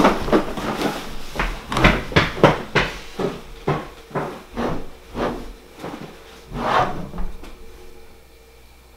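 A quick series of knocks, thuds and rustles, roughly two a second, as a person hurries about gathering and handling things in a cupboard-lined room. The sounds grow fainter and stop near the end.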